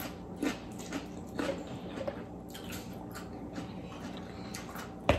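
Close-up eating sounds: soft chewing, lip smacks and small mouth clicks, scattered irregularly, with a sharper knock right at the end.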